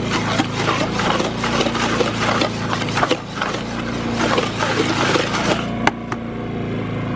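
A shovel scraping and stirring concrete mix, in dense, irregular strokes that stop about six seconds in. Under it an engine runs steadily.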